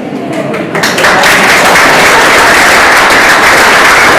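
Audience applauding, swelling over the first second into loud, steady clapping.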